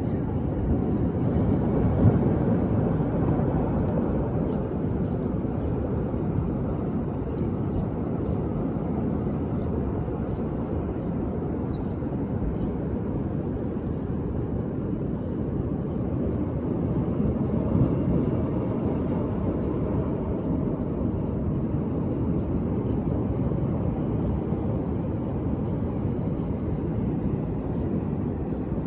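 Ocean surf: a steady low wash of waves, swelling about two seconds in and again around eighteen seconds.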